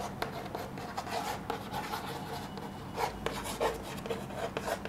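Chalk writing on a blackboard: short scratching strokes and taps of the chalk, a few louder strokes about three seconds in.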